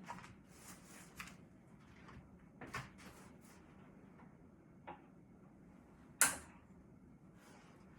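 Quiet rustling and clicking as tools and packaging are handled, with one sharp snap about six seconds in.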